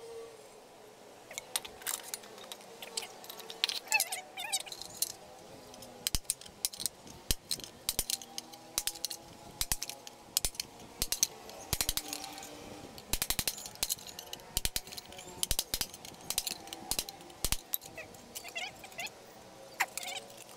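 Many short, irregular metallic clinks and rattles as the aluminium base plate and small metal parts of an electric rice cooker are handled.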